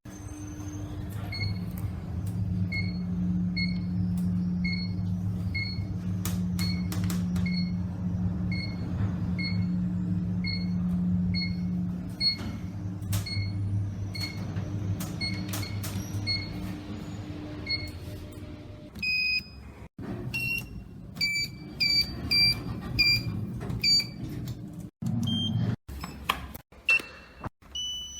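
Elevator beeping in a steady repeating pattern, about one and a half beeps a second, over a low hum for about sixteen seconds. Then come a string of short elevator chimes and beeps at different pitches, each cut off abruptly.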